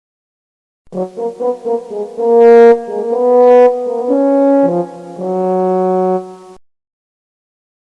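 A short brass-sounding musical phrase: a run of quick short notes, then several longer held notes, stopping about six and a half seconds in.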